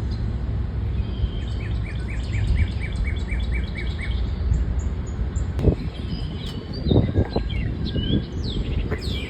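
Wild birds singing, one repeating a quick series of about ten chirps at roughly four a second, with other birds' short whistled notes after it. A steady low rumble lies underneath, with a few dull thumps in the second half.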